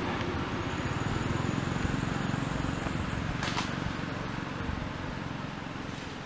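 Steady outdoor background rumble and hiss, with a faint thin high tone in the first half and a single sharp click about three and a half seconds in.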